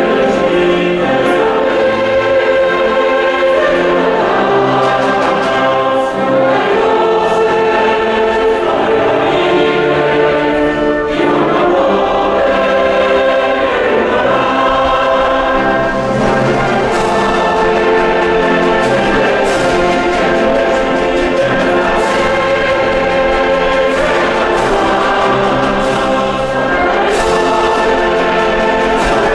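Background music: a choir singing with orchestral accompaniment, in long held chords.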